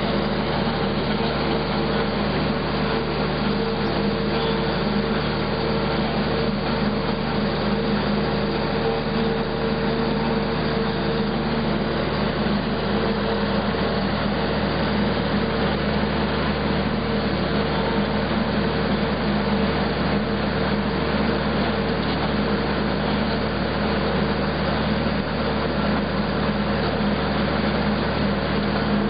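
Walk-behind shot blasting machine and its dust collector running while blasting a concrete deck: a steady motor hum under an even hiss.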